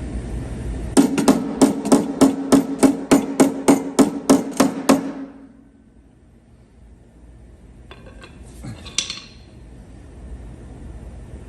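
Body hammer tapping down a high spot on an Audi Q5 quarter panel: about fifteen even strikes, roughly three a second, with the panel ringing under them. A short rattle comes near the end.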